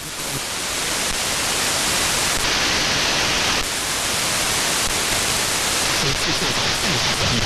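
Shortwave radio static: steady hiss from an AM receiver tuned off-station around 13.8 MHz on the 22-metre broadcast band. The noise shifts in tone a couple of times as the frequency is stepped up.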